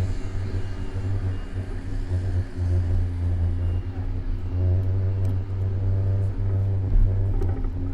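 City street traffic: a vehicle engine running with a steady low drone, with a few light clicks in the second half.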